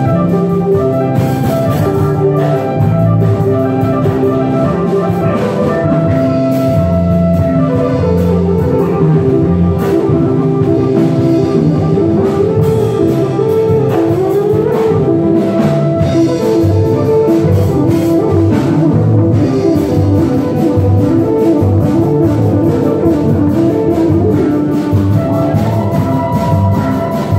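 Live band playing, with keyboards over a drum kit; sustained pitched notes run throughout, with a short gliding figure about halfway through.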